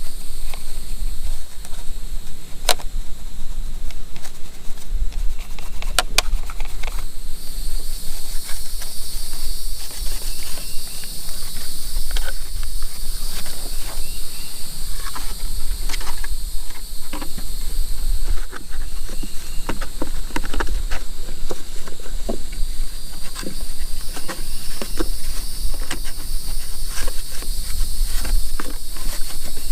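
Steady high insect chorus over a low steady rumble, with scattered light clicks and taps of hands and tools working on a radio-controlled truck.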